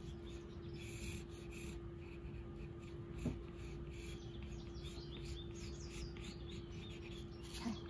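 Soft Prismacolor Ebony graphite pencil scratching faintly across corrugated cardboard as a curved outline is drawn, over a steady low hum.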